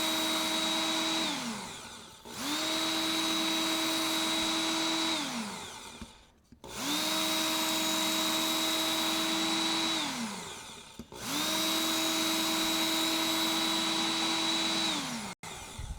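Work Sharp Ken Onion electric belt knife sharpener running with a honing belt as a chef's knife is drawn across it: the motor starts with a steady whine, runs about three seconds, then stops with a falling pitch as it coasts down. This happens four times, alternating passes on each side of the blade.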